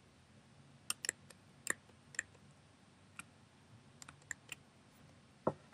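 Faint computer mouse clicks, about eight short sharp clicks at irregular intervals, with a brief louder sound near the end.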